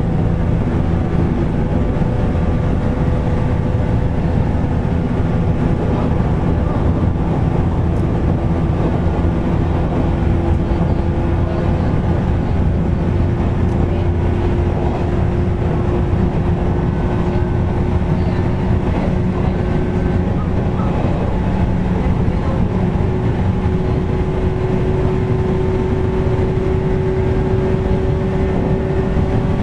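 Interior running sound of a JR 413 series electric train, heard from inside motor car KuMoHa 413-5: steady rumble of the wheels on the rails, with a motor hum slowly rising in pitch as the train gathers speed. The air conditioning runs loudly underneath.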